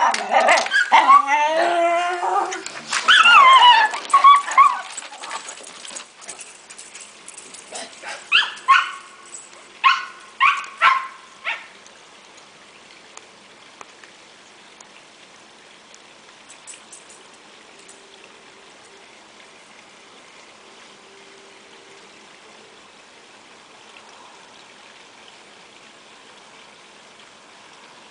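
Cairn terriers whining and yipping excitedly, with bending high calls for the first few seconds, then a handful of short separate barks about eight to eleven seconds in. After that only a faint steady outdoor hiss remains.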